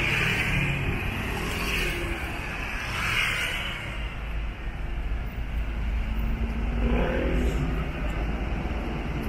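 Road traffic on a rain-wet street: car tyres hissing past in the first few seconds, then a heavier low engine rumble with a brief engine note about seven seconds in.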